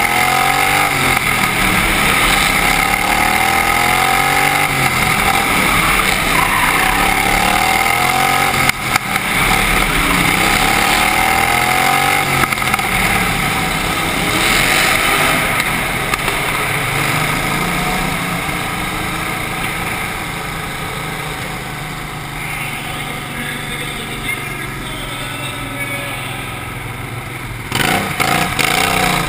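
Outlaw racing lawnmower's engine heard onboard, revving up in rising sweeps and dropping back again and again as it laps the oval. In the second half it runs steadier and somewhat quieter.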